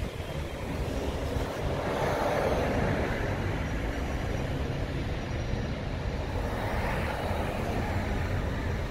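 Road traffic noise: a vehicle going by about two seconds in and another around seven seconds, over a steady low rumble.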